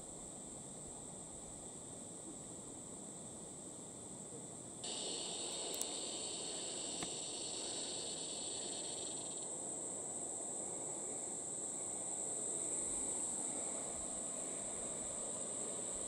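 Steady high-pitched insect chorus droning over a soft rush of river water. About five seconds in a second, lower insect buzz joins abruptly and fades out some four seconds later.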